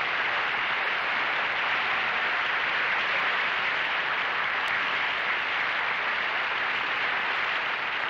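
Studio audience applauding steadily after a song number, easing off near the end.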